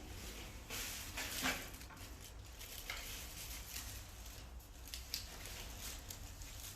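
Faint rustling and handling noises, with a few soft scuffs, over a steady low hum.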